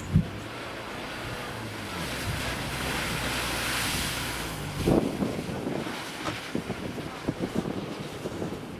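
Suzuki Vitara SUV driving through snow and slush, its tyres and engine a rushing noise that swells around the middle as it throws up slush, with wind on the microphone. A sharp thump comes right at the start, and a run of short knocks and clatters follows in the second half.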